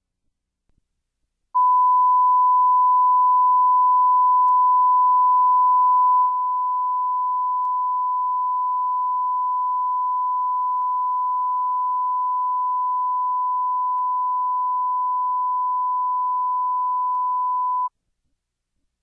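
Broadcast line-up test tone: one pure, steady, high-pitched beep held for about sixteen seconds. It starts about a second and a half in, drops a little in loudness about six seconds in, and cuts off suddenly near the end.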